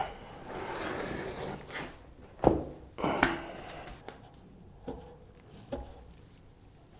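Fat-bike wheel with a knobby studded tyre being handled: rubbing of the rubber against the hands, then two sharp thumps a little under a second apart as the wheel is set down flat, followed by a few lighter knocks.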